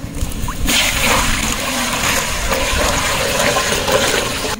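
Water poured from a plastic bucket into a large metal cooking pot: a steady gushing splash into the water already in the pot, starting just under a second in.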